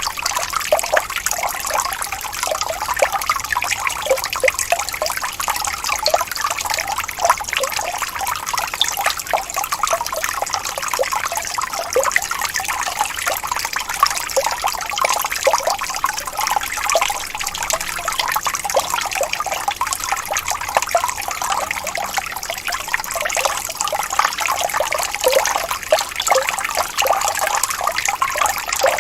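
Small waterfall: water splashing and trickling steadily, with a constant dense patter of little splashes.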